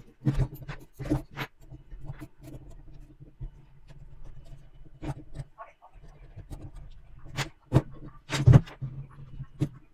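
Small metal construction-kit parts clicking and clinking as they are handled and fitted together on a wooden table, in scattered sharp clicks with the loudest knocks near the end. A steady low hum runs underneath.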